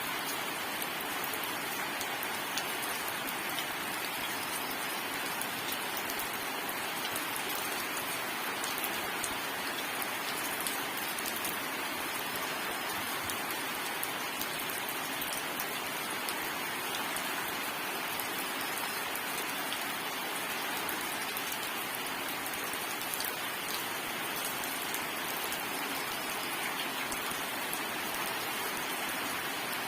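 Steady rain falling, with a dense, even hiss of drops striking a surface and scattered individual drop ticks, no thunder.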